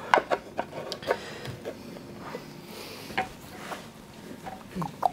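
Scattered light clicks and taps as a small hand tool and a wooden guitar backplate are handled on a workbench.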